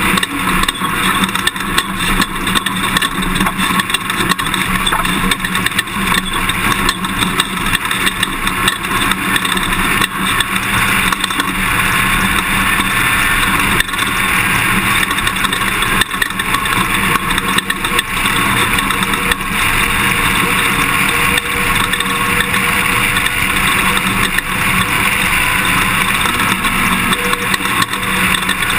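Toyota Tundra pickup driving off-road, its engine running under steady loud road and chassis noise, with frequent short knocks and rattles.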